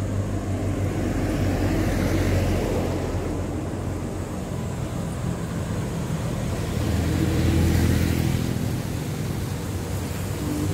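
Road traffic on a city street, with cars passing about two seconds in and again around seven to eight seconds, over a steady low rumble.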